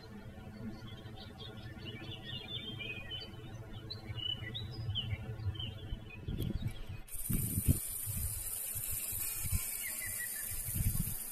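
Small birds chirping and calling from the reeds and trees around a lake, short quick notes repeated through most of the stretch. Several low knocks come in after about six seconds, and a steady high hiss switches on suddenly about seven seconds in.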